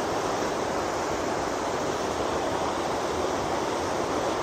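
Crammel Linn, a 7.6-metre waterfall on the River Irthing, rushing steadily and evenly.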